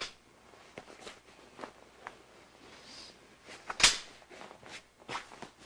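Hospital bed side rail being handled: a series of small clicks and knocks, with one loud sharp clack just under four seconds in as the rail is raised and latches.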